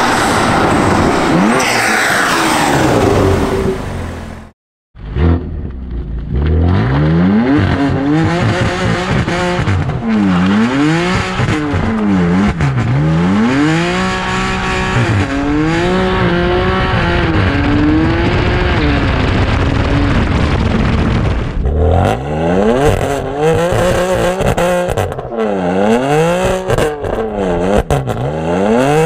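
BMW M3 F80's straight-piped twin-turbo inline-six going past hard with its pitch falling. After a brief cut it revs up and down again and again through a burnout, with the rear tyres spinning on tarmac. The revving gets quicker and choppier near the end.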